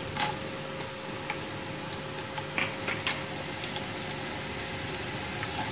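Sliced onion and whole spices sizzling in hot oil in an aluminium pot, a steady frying hiss with a few soft clicks as a wooden spatula stirs.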